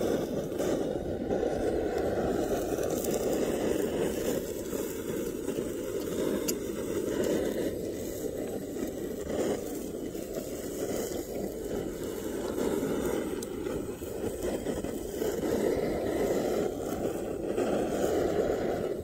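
Handheld butane torch flame burning steadily with a continuous low rushing.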